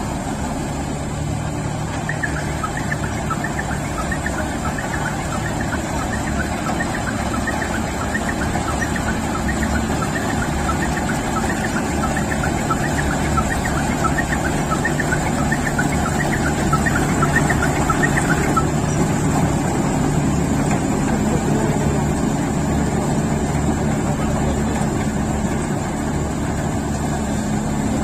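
Diesel engine of heavy machinery running steadily, swelling slightly in the middle.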